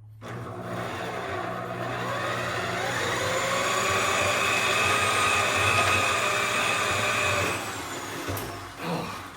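Electric motor of a wire-stripping machine starting up, winding up in pitch over about three seconds, running steadily with a whine, then winding down about eight seconds in.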